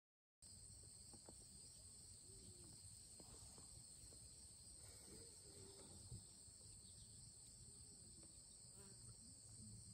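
Faint, steady chorus of insects, a continuous high trill at two pitches that never breaks, starting about half a second in.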